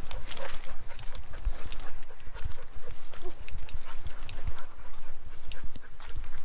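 Footsteps and scuffs on a rocky mountain trail, with a dog's sounds mixed in and a low, uneven rumble on the microphone.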